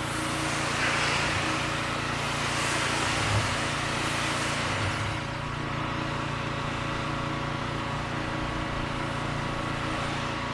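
Pressure washer running steadily, its motor humming under the hiss of the lance's wide fan spray as water is misted over chemically treated block paving; the spray hiss is strongest in the first few seconds.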